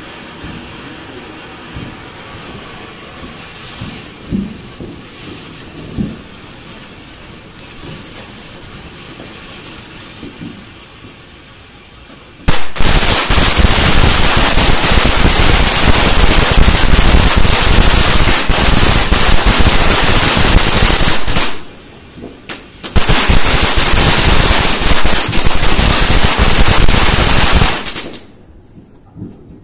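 Ground fireworks: a spark fountain hisses steadily. About twelve seconds in, very loud rapid crackling starts, breaks off briefly, resumes, and cuts off suddenly near the end.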